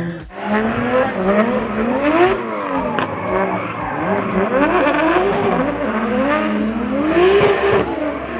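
Two drift cars' engines revving up and down again and again as they slide, their pitch rising and falling about once a second, with tyres skidding on the tarmac.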